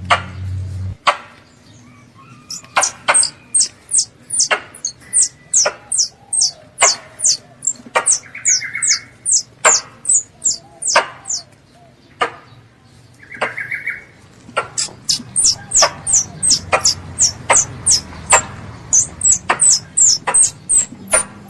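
A young squirrel calling with a rapid series of sharp, high-pitched chirps, about two to three a second in long runs, broken by a short pause about two-thirds of the way through.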